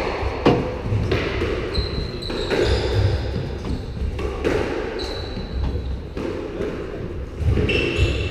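Squash rally: a squash ball struck by rackets and hitting the court walls, a sharp crack every second or two, with short squeaks of court shoes on the wooden floor between the shots.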